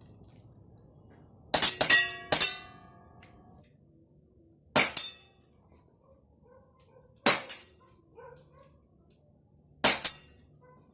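CO2 air pistol firing: three quick shots followed by a metallic ringing, then single shots about every two and a half seconds.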